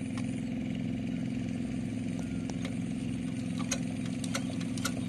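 Single-cylinder diesel engine of a two-wheel hand tractor running steadily at idle, with scattered sharp clicks over the engine's even beat.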